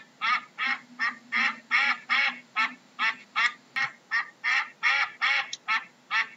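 Duck quacking in a fast, even series of short, nasal quacks, about three a second.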